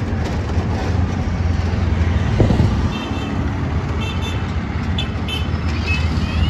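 Auto-rickshaw engine running steadily under way, heard from the passenger seat with road and traffic noise. A few short high-pitched horn toots from the surrounding traffic come in the second half.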